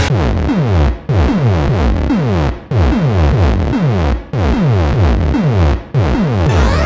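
Electronic drum-machine loop from the ODD Ball app built from synthesized arcade-game sound effects: a rapid stream of short zaps that each fall in pitch. The loop breaks off and restarts about every second and a half.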